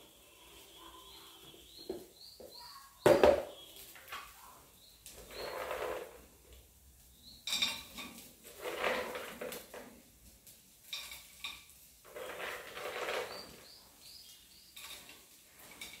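Handfuls of peanuts dropped into a white-coated frying pan, rattling against the pan in three or four short bursts, with one sharp knock about three seconds in.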